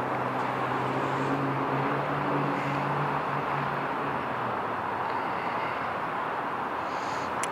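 Fire engine's diesel engine running in the station bay: a steady engine noise, with a low steady drone that stops about four and a half seconds in.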